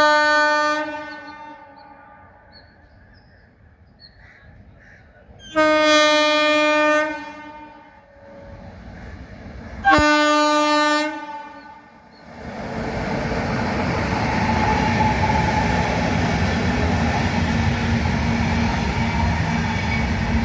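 Indian Railways diesel locomotive horn sounding three short blasts about five seconds apart, each a single steady pitch. About twelve seconds in, the train's running noise rises and holds steady as it passes, with the rattle of wheels on rail.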